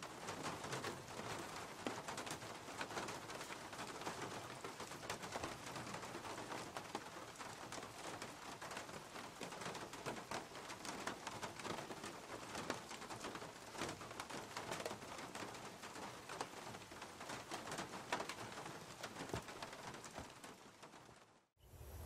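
Steady pattering noise full of small ticks, fading out about a second before the end.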